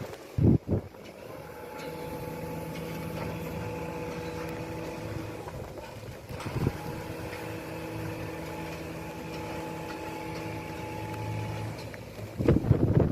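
An engine running steadily with a constant pitch, broken by a few loud knocks or thumps: one near the start, one about halfway through, and a burst of them near the end.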